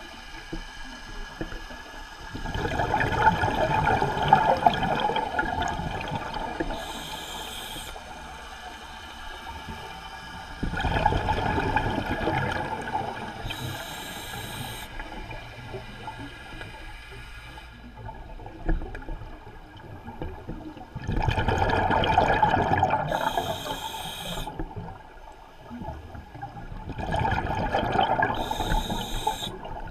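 Scuba breathing through a regulator underwater: four long bursts of exhaled bubbles, each about three seconds, every eight seconds or so, each ending in a short high hiss from the regulator.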